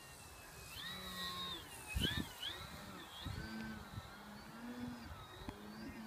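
Motor and propeller of an electric RC Super Decathlon in flight, a whine whose pitch rises and falls. A couple of low thumps of wind on the microphone about two seconds in.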